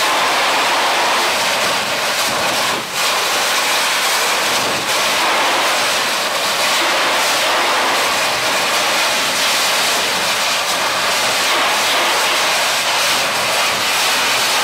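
High-pressure water jet of a hydrodemolition robot blasting concrete off a reinforced wall: a loud, steady hissing rush that dips briefly about three seconds in.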